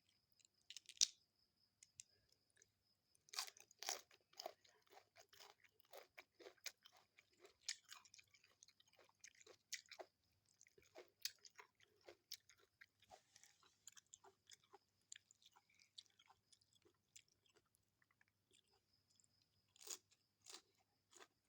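Close-up eating sounds: a person chewing a meal of rice and fried fish, with irregular soft crunches and mouth clicks. The loudest bites come about a second in and again three to four seconds in.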